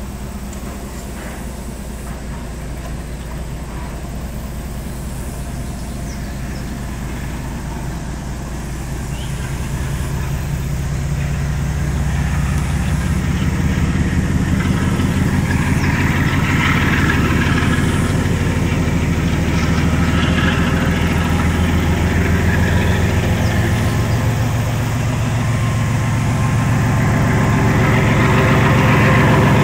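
GE Evolution Series (GEVO) diesel locomotive's V12 engine chugging under load as it pulls a freight train away, a fast steady pulse. The chug grows louder about ten seconds in.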